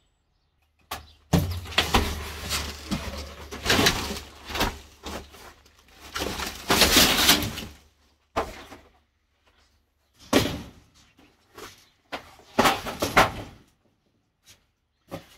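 A cardboard box and a QuietCool whole house fan's foil-wrapped insulated flexible duct being handled and pulled out. It comes as bursts of rustling and crinkling separated by short silences, the loudest about seven seconds in.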